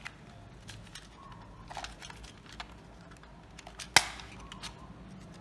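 Light plastic clicks and handling noise from a toy drone's remote controller, then a single sharp snap about four seconds in as the controller's plastic battery cover unclips.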